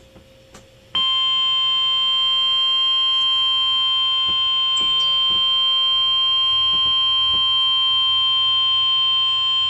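Emergency alert attention tone: one steady, high alarm tone that comes in about a second in and holds unbroken for about nine seconds. It announces a severe thunderstorm warning.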